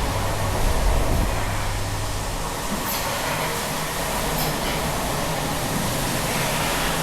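Steady running noise of dairy shed machinery, with a low hum over the first couple of seconds and two faint clicks.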